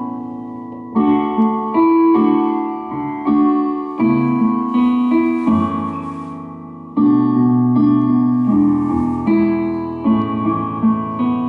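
Instrumental interlude of a slow ballad with no voice: piano chords struck about once a second and left to ring out, with two soft cymbal-like shimmers in the middle.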